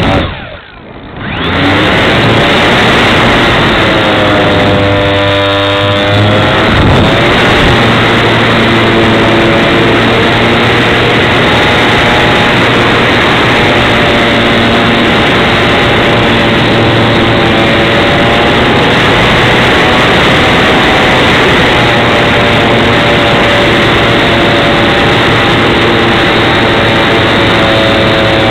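Motor and propeller of a Tech One Extra 330 model aerobatic plane, heard loud and close from its onboard wing camera with rushing airflow. Near the start the sound cuts out for about a second as the throttle is pulled back, then returns. A few seconds later the pitch dips and rises, and it then runs steadily at high throttle.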